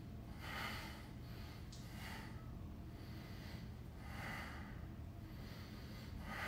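Hard breathing of a man straining to hold a hollow-body core position: a sharp puff of breath about every two seconds, over a faint steady low hum.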